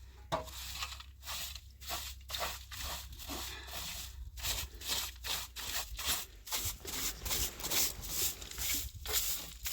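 Repeated rough scraping strokes, uneven, about three a second.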